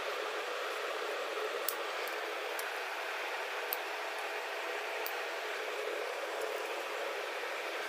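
Steady background hiss with a few faint sharp clicks, from tailoring scissors snipping through folded cotton cloth.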